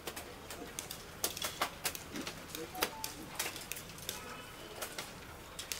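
Arrows from many archers shooting at once striking a straw-bundle teer target: a rapid, irregular run of sharp clicks and thwacks, roughly three a second.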